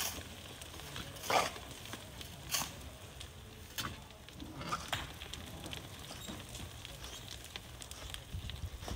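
Hand-shovelled sand and gravel: irregular scrapes and clinks of a tool digging into gritty sand among stones, the strongest strokes coming about once a second, over a steady low rumble.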